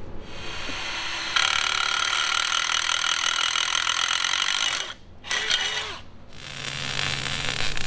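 Cordless impact driver running a bolt in while mounting an alternator bracket: one long run of about three and a half seconds, a brief burst, then another run of about three seconds.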